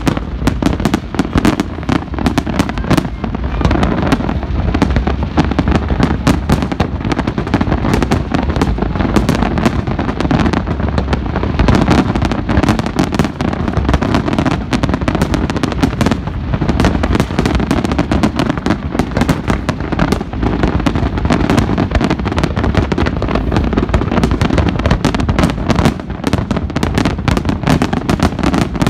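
Fireworks display: a dense, unbroken barrage of aerial shell bursts, many sharp bangs and pops a second running together.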